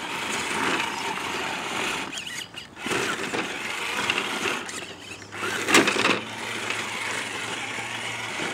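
Electric drive of a radio-controlled rock crawler truck whining as it creeps over rocks, dropping off briefly twice, with a louder burst of noise about six seconds in.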